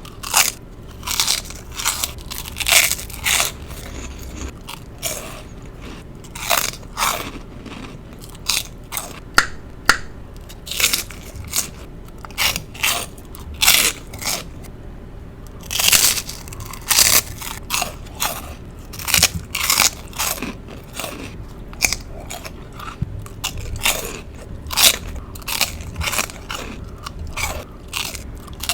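Close-miked chewing of crunchy pork rinds with guacamole: repeated crisp bites and crackling crunches in irregular clusters, with short pauses between mouthfuls.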